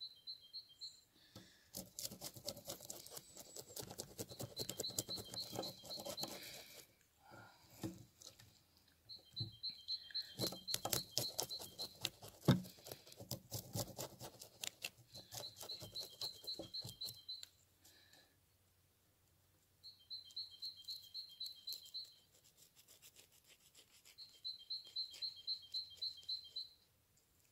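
Rapid scraping strokes of a knife scaling a perch on a wooden board, in runs of several seconds. A bird's short, fast high trill repeats every few seconds, over and between the scraping.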